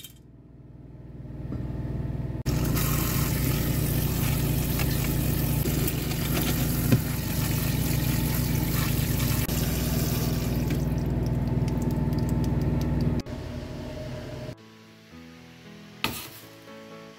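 Tap water running steadily onto dried chickpeas in a stainless steel bowl as they are rinsed and stirred by hand, cutting off about three-quarters of the way through. Background music follows, with one sharp knock near the end.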